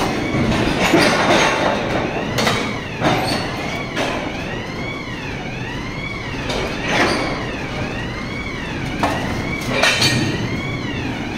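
Railway coal wagons moving slowly through a wagon tippler, steel clanking and knocking now and then. Under it runs a high tone that rises and falls about once a second.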